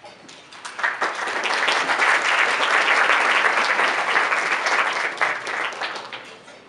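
Audience applauding: many hands clapping, swelling over the first second, holding steady and then tapering off near the end.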